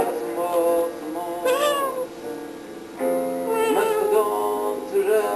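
A person imitating a cat, giving meow-like calls that rise and fall in pitch, twice, over steady music, which is likely the phone's hold music.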